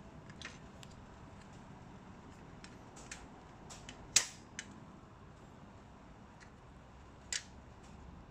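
Scattered clicks and clacks of an AEG mitre saw leg stand's steel arm and mounting bracket being handled and slid along the rail, the sharpest about four seconds in and another near the end.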